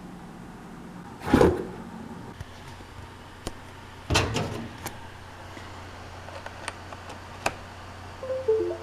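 Two loud knocks, about a second and four seconds in, and scattered small clicks of handling, then near the end a short three-note electronic chime stepping down in pitch as a USB cable is plugged into a laptop.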